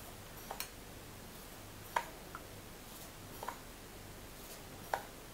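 Metal teaspoon clinking against the glass bowl as semolina is scooped out, light clinks about every second and a half, some of them doubled, the sharpest about two seconds in.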